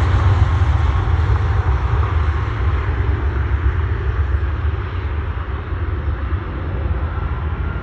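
Jet aircraft taking off, its engines giving a steady, deep rumble that slowly fades as it climbs away.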